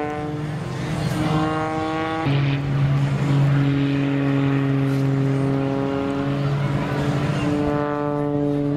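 Piston engine and propeller of a single-engine aerobatic monoplane, a steady buzzing drone that shifts pitch as the plane manoeuvres. It steps up about a second in, drops lower about two seconds in, and climbs again near the end.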